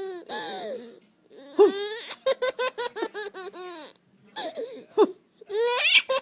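A baby laughing in several high-pitched fits of quick, rhythmic ha-ha pulses, with short breaks between them.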